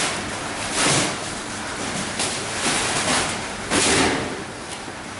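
Irregular bursts of scraping and rustling as large paper rolls are handled and rolled across a concrete floor, with no steady machine running.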